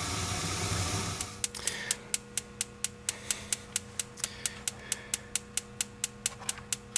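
A gas furnace burner's steady rush stops about a second in. Then the intermittent pilot's spark igniter clicks steadily, about four to five sparks a second, over a faint low hum, as it tries to light the pilot.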